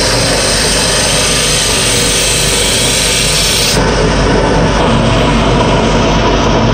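Wood lathe running with a hand-held turning tool cutting into a spinning wooden disc: a loud, steady scraping hiss over the motor's hum. About four seconds in the bright hiss drops away, and the lathe keeps running.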